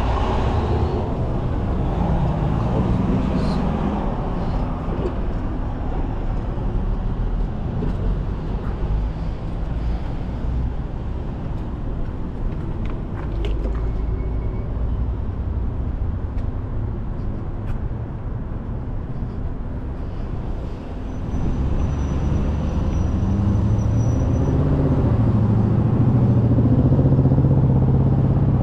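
Road traffic passing on a busy multi-lane street, a steady mix of cars and trucks. About two-thirds of the way through, a louder low engine drone builds from a nearby heavy vehicle and keeps rising toward the end.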